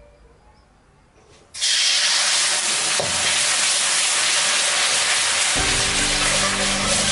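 Fish-sauce caramel sizzling in a hot wok, with steam hissing off the bubbling liquid. It starts suddenly about a second and a half in and then stays loud and steady.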